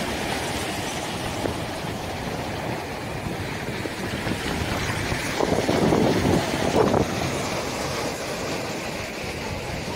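Surf breaking and washing up over a pebble beach, with wind on the microphone, a steady rushing noise that swells a little about halfway through.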